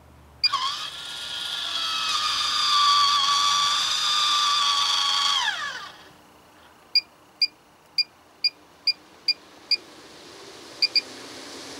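Maxxair 7500K roof vent fan being worked by its remote: a click, then its electric lid motor whines for about five seconds and winds down as the lid stops. A run of short electronic beeps follows, about two a second and then two more, as the remote buttons are pressed, and the fan's rush of air starts to build near the end.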